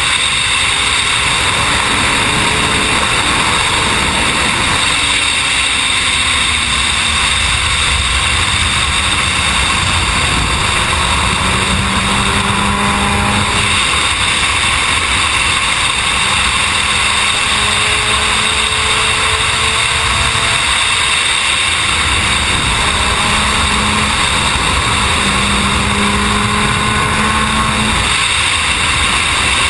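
Suzuki sport motorcycle running at high motorway speed: a constant, loud rush of wind and road noise over the engine note, which drifts only slightly in pitch.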